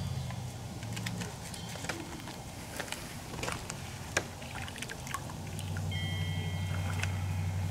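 Soapy water sloshing and dripping as hands scrub a wet dog standing in a plastic kiddie pool, with scattered small splashes and clicks. Under it is a steady low hum that grows louder about two-thirds of the way in.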